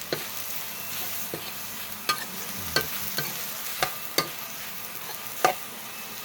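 Minced pork and tomatoes sizzling in a pan while a spatula stirs and presses them down to a mush. The spatula knocks sharply against the pan about six times, loudest near the end.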